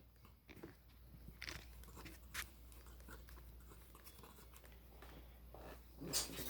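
Faint handling noises: soft rustles and a few small clicks, as of hands moving a small toy model.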